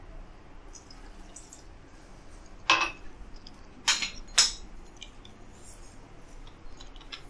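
Three short clatters of kitchenware around an aluminium pressure cooker: one about two and a half seconds in, then two close together about a second later, with faint small ticks between.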